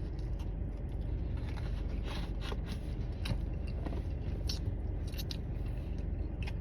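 A person chewing a chicken sandwich, with short crinkles and clicks from its paper wrapping, over a steady low hum.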